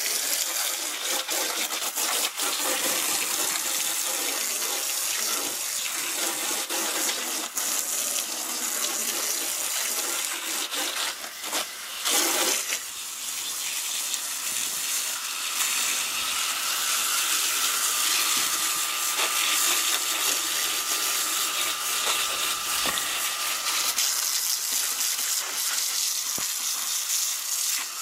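Water from a garden hose spray nozzle jetting steadily onto and through the aluminium-finned coil of a Ruud condensing unit, rinsing out the coil cleaner: a continuous rushing spray and splash.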